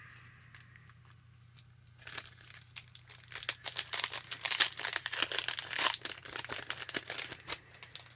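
A foil trading card pack wrapper being torn open and crinkled, starting about two seconds in and continuing in a dense crackle of ripping and rustling until shortly before the end.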